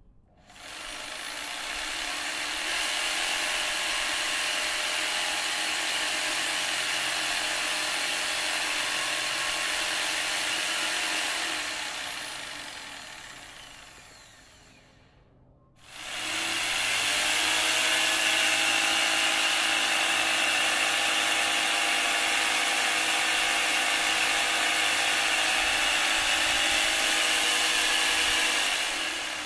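Corded electric jigsaw running without cutting, a steady high buzz that builds up over a couple of seconds after starting. It runs for about ten seconds, dies away over a few seconds, then starts again and runs steadily until it slows near the end.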